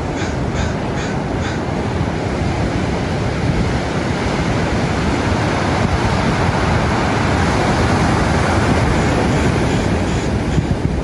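Ocean surf breaking on the shore: a steady rushing, rumbling wash of big waves that grows a little louder toward the end, with wind buffeting the microphone.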